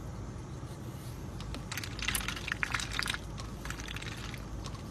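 A duck dabbling its bill in a plastic cup of water: quick clicks and wet slurps in short runs, busiest about two to three seconds in, over a steady low car-cabin rumble.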